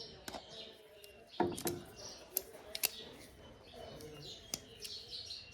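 Irregular clicks and light knocks of hand work on a pickup's taillight: a Phillips screwdriver and small tools being handled and a screw being driven back in. Birds chirp faintly in the background.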